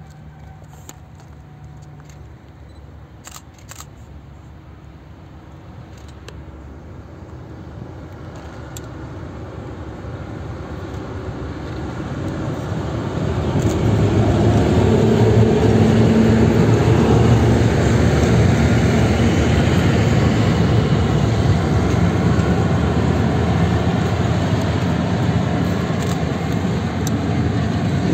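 A freight train hauled by two diesel locomotives, led by an ST44 with its two-stroke V12 diesel, approaching and passing. The engines' low drone grows louder for about fourteen seconds as the locomotives reach and pass. Then the steady rumble and clatter of the wagon wheels on the rails runs on as the open wagons roll by.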